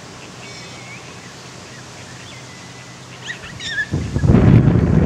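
Wind buffeting the camera's microphone, coming in as a loud low rumble about four seconds in, after a quieter stretch with a few faint high chirps.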